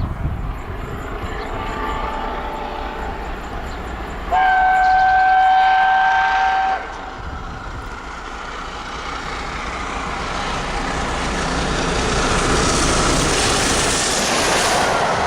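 Steam locomotive whistle, A1 Pacific 60163 Tornado, giving one long chime blast of about two and a half seconds after a fainter sounding of it. The rumble of the approaching train then grows steadily louder.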